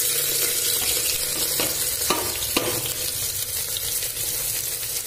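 Sliced onions sizzling in hot oil, just tipped into the pot, a dense steady hiss of frying. Three short sharp clicks come about one and a half to two and a half seconds in.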